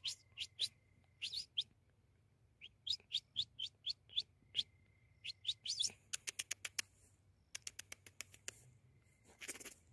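Bird chirping: short, sharp, rising chirps in irregular runs, with a fast run of about eight clipped notes around six to seven seconds in.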